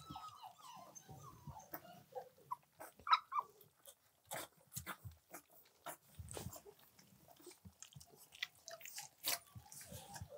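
Three-week-old German Shorthaired Pointer puppies lapping and licking at soft puppy mush: many small wet clicks and smacks, with brief whimpering squeaks now and then.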